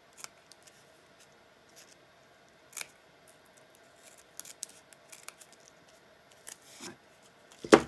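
Fiskars Easy Action spring-loaded scissors snipping fabric in short, irregular cuts, roughly one every second or so. A louder thump comes near the end.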